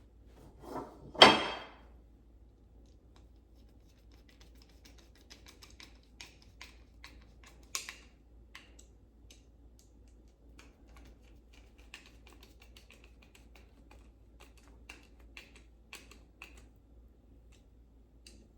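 Small metal door-handle parts being handled and fitted together: scattered light clicks and taps, with one louder clatter about a second in.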